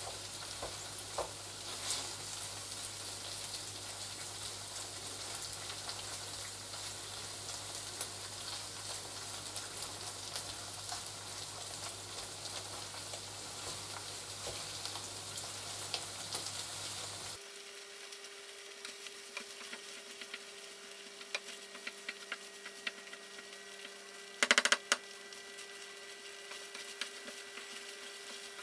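Potato noodles, vegetables and melting herb processed cheese frying in a nonstick pan: a steady sizzle with the scrape of a wooden spatula stirring. A little over halfway through, the sizzle drops to a quieter steady hum with a faint high tone, and a brief loud knock comes near the end.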